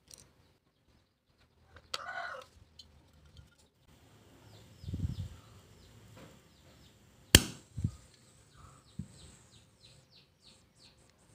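Butane hissing and sputtering at the fill valve of an S.T. Dupont Ligne 2 lighter as it is refilled from a gas can, heard as a faint hiss with a quick series of small chirps that speeds up near the end. The hiss comes from the filling valve, a gas leak that is later put down to a faulty O-ring. A sharp click past the middle and a few softer knocks come from handling the can and lighter.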